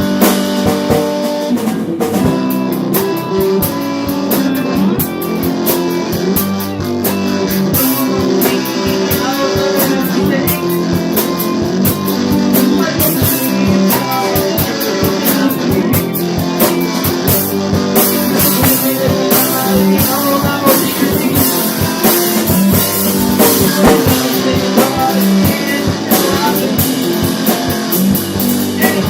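Rock band demo recording: guitars playing over a drum-kit beat.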